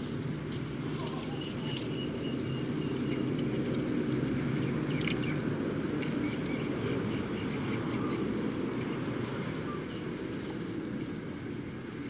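Outdoor field ambience: a steady low rumbling noise with a faint, continuous high-pitched insect drone over it.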